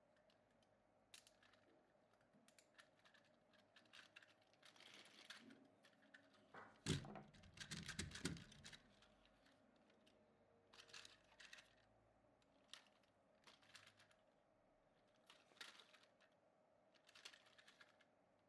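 Faint, scattered clicks and rustles of small objects being handled, with a louder knock and rustling about seven seconds in.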